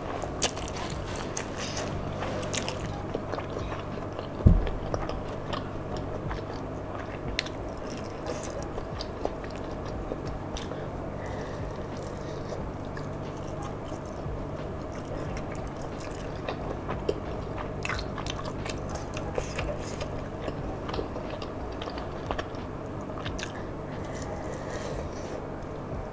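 Close-miked chewing and biting as a person eats rice and spiced meat with her fingers, with many small wet clicks and crackles over a steady low hum. There is one sharp thump about four and a half seconds in.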